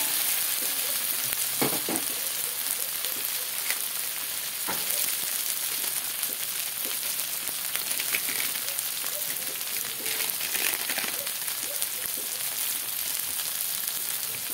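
Lemongrass, garlic, ginger and ground dried chilli frying in a little oil in a wok: a steady sizzle with scattered small crackles and a couple of soft knocks.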